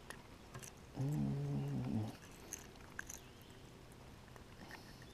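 A brief low hummed voice sound, about a second long, starting about a second in, with a few faint clicks around it.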